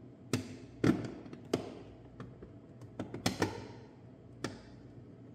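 Irregular sharp taps and knocks, about eight in five seconds and loudest in the first half, as metal M4 bolts are slid through drilled holes in a hard plastic toolbox wall.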